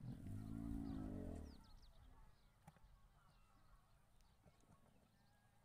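Dromedary camel calling: one loud, low, drawn-out vocalisation of about a second and a half, rising then falling slightly in pitch.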